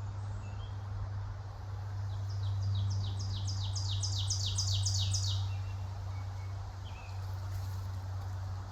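A songbird sings a quick series of about a dozen repeated high, downward-sliding notes that grow louder over about three seconds, with a few short, fainter chirps before and after. A steady low hum runs underneath throughout.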